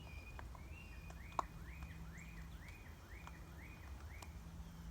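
A bird singing a run of about eight clear whistled notes, each sliding quickly up and then held briefly, a little over two a second. A faint low hum runs underneath.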